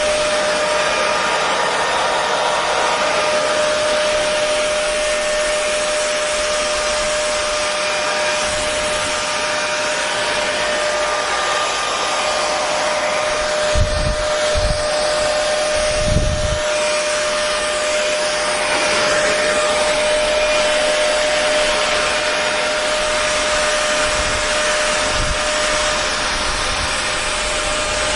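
Hair dryer running steadily: an even rush of air with a constant tone through it, broken by two brief low thumps about halfway through.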